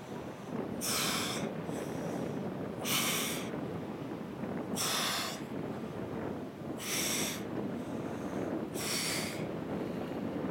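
A woman's sharp breaths out through the mouth, about one every two seconds, one for each crunch as she comes up. There are five in all, with fainter breaths in between.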